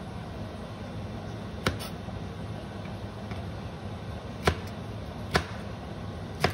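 Chef's knife slicing through fresh okra pods and knocking on a cutting board: four sharp knocks spaced unevenly a second or more apart, over a low steady hum.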